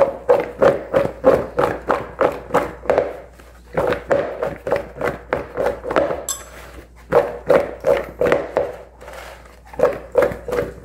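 Cut vegetables (mushrooms, potatoes, pineapple, onion, cherry tomatoes) tossed in a plastic mixing bowl. The bowl is shaken in rhythmic bursts of about three knocks a second, with two short pauses, to coat the pieces in barbecue sauce.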